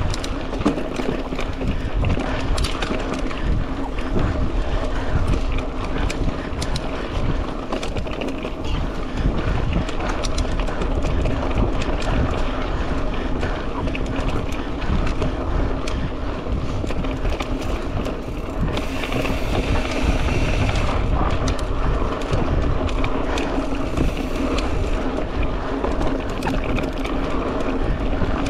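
Mountain bike ridden fast over rough trail: tyres on dirt and the bike rattling over bumps, with many sharp clicks and knocks, under wind noise on the microphone.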